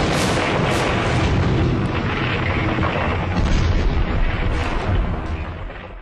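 Plane-crash explosion sound effect: a dense, rumbling blast with scattered crackles that holds loud for about five seconds, then fades out near the end.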